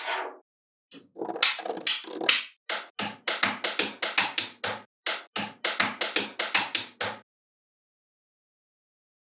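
Small magnetic balls clicking against one another as they are snapped into place, a quick series of sharp clicks at about four a second that stops about seven seconds in.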